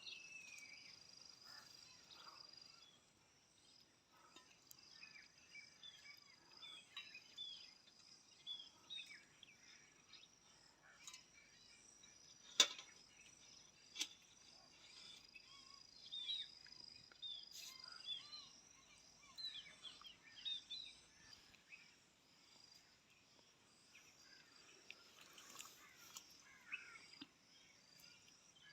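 Faint outdoor ambience: a steady high-pitched insect drone with many short bird chirps throughout, and a single sharp click about midway.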